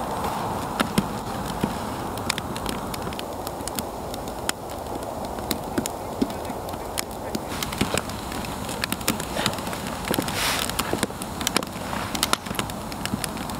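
Wood fire crackling, with irregular sharp pops over a steady hiss of burning, and a brief louder hiss about ten seconds in.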